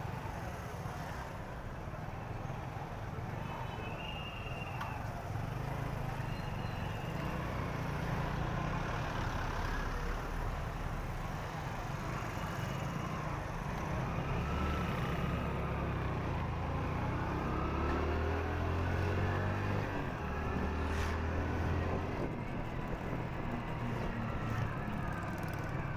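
Motorcycle engine running under the rider amid city traffic noise, idling and creeping in a jam and then pulling away, its note growing louder and rising in the second half as the bike picks up speed.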